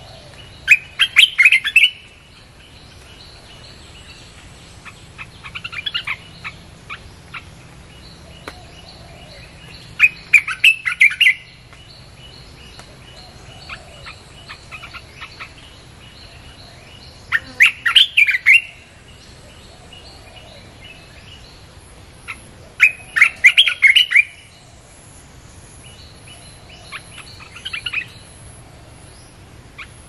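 Bulbul song: short bursts of quick, chattering notes about every five seconds, some loud and some fainter, played as a lure to call in wild bulbuls.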